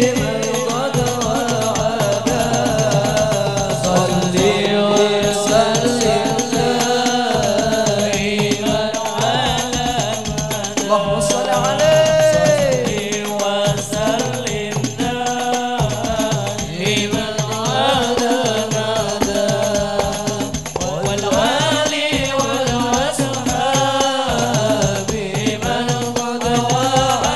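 Hadroh ensemble performing sholawat: frame drums (rebana) beating a dense, steady rhythm under voices singing an Islamic devotional chant.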